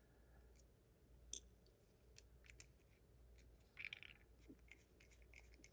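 Faint, scattered small clicks and ticks from handling a disassembled lock's plug and pin parts, with one sharper click about a second in and a brief cluster of clicks near four seconds.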